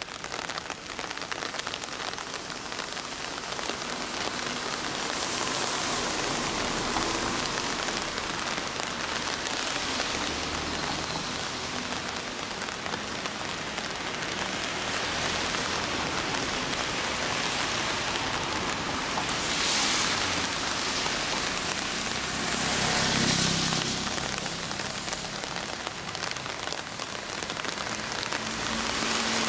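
Kawasaki KDX125's two-stroke single-cylinder engine running steadily through its RSV expansion-chamber exhaust, briefly louder twice, about 20 and 23 seconds in.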